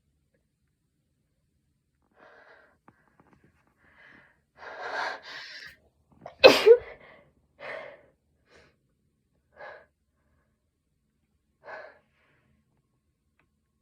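A person's sneeze: short breaths building to a long, noisy inhale, then one loud, sharp sneeze about six and a half seconds in, followed by a few short breaths. The sneeze comes at last after a long build-up, during a cold or allergies.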